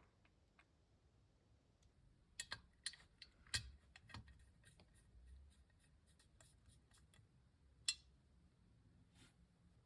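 Faint keystrokes on a Zoom65 v3 custom keyboard with lubed KTT Hyacinth linear switches, a POM plate and PBT keycaps. A quick run of several keys comes about two to four seconds in, then scattered soft strokes and one sharper keystroke near eight seconds.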